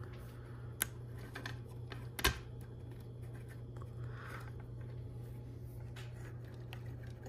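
LEGO Technic plastic parts being handled and pressed together: a sharp click about two seconds in, a fainter one near the start and some soft rubbing, over a steady low hum.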